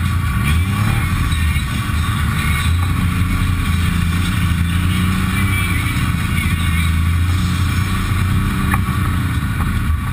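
Textron Wildcat XX side-by-side's engine running at low trail speed, heard from inside its cab, the engine note rising and falling gently as the throttle changes.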